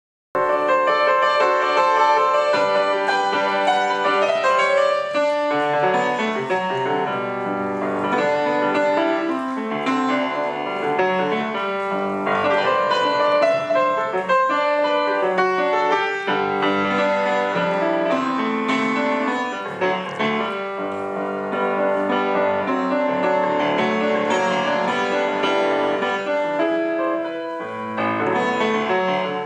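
Solo grand piano playing a gato, an Argentine folk dance, in a lively, continuous stream of notes across the keyboard.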